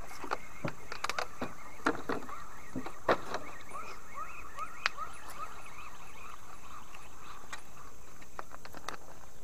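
A hooked hampala barb thrashing at the surface beside the boat, giving irregular sharp splashes. About midway, an animal calls a run of short rising chirps.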